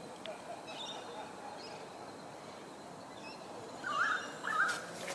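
Birds calling outdoors: a few faint chirps, then two louder short warbling calls about four seconds in, half a second apart.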